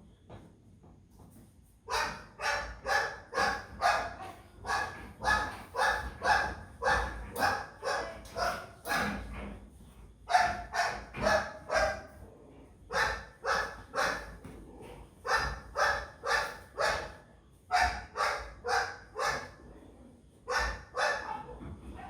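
A dog barking over and over in quick runs of short barks, about two or three a second, starting about two seconds in, with brief pauses between runs.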